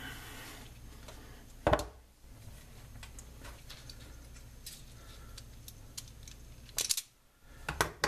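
Small handling noises of a person getting wire at a workbench: one sharp knock about two seconds in and a few fainter clicks and rustles later.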